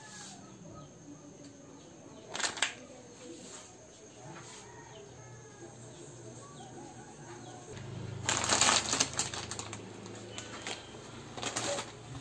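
Plastic instant-noodle packet crinkling and rustling in short bursts, the longest and loudest a little after halfway, over a low steady hum.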